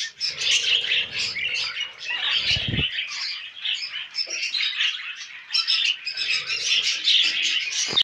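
Male budgerigars chattering and warbling continuously in quick, high, twittering phrases, with a brief low rumble about two and a half seconds in.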